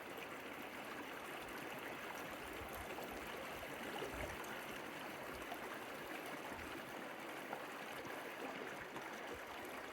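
The Gila River running: a steady, even rush of flowing water.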